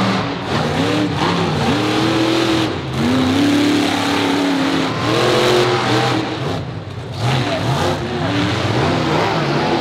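Monster truck engine revving hard again and again, its pitch climbing and falling in about half a dozen surges, with a brief easing off about seven seconds in.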